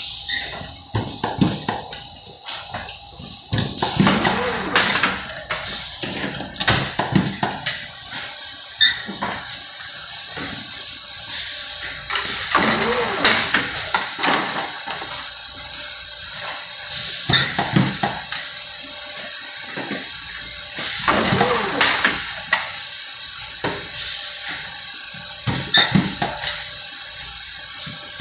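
Automated plastic-tube laser-welding assembly machine cycling: clusters of clacks and hissing bursts from its mechanisms repeat about every four to five seconds over a steady high hiss.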